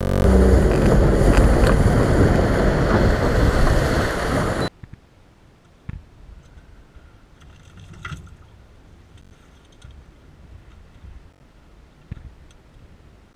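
Fishing boat running at speed, a loud steady rush of hull, water spray and wind on the microphone, which cuts off suddenly about five seconds in. Then quiet wind and water with a few faint knocks.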